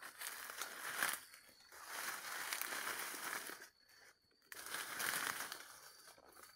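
Dry leaves, grass and thin bamboo stems rustling and crackling as someone pushes through dense undergrowth, in three bouts with a short pause a little past halfway.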